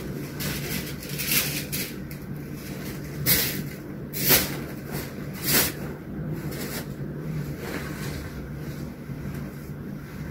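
Bedding rustling as it is straightened and smoothed by hand, in a few short swishes, over a steady low hum.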